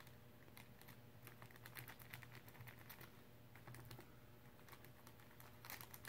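A glue stick rubbed in quick, quiet strokes along the edges of a stack of brown paper lunch bags, giving irregular soft scratches and ticks against paper.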